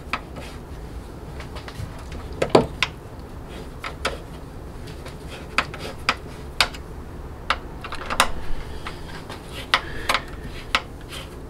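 Irregular sharp metallic clicks and small knocks as a T-handle Torx driver turns the screws into a Jeep Wrangler JKU tailgate check strap mount, about a dozen in all with the loudest a few seconds in.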